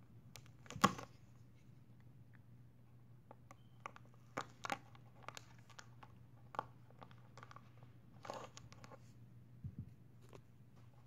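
A knife scraping and picking at the clear plastic wrap on a rolled poster, in scattered crinkles, scratches and clicks, the loudest about a second in. The blade is not getting through the plastic. A steady low hum runs underneath.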